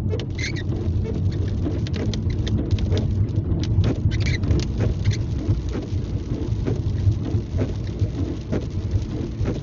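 Rain pattering on the windshield and roof of a moving car, heard from inside the cabin, over the steady low rumble of the car driving on a wet road.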